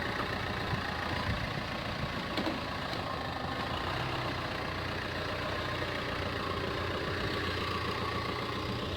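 Chevrolet Spin turbodiesel engine running steadily, with no revving. It is running on rocker arms that have been repaired with brass welding.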